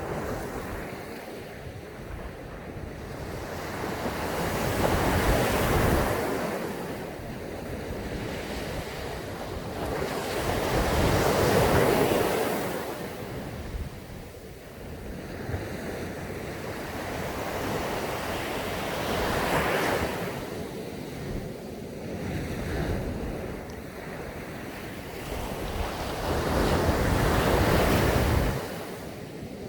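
Sea waves breaking on a sandy beach: four surges, each building to a crash and washing back, roughly every seven seconds, with a sharp drop just after the last.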